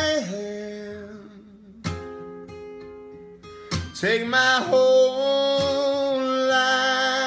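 Acoustic guitar strummed with a man singing slow, held notes; the strums come about two and four seconds in and the singing picks up after the second.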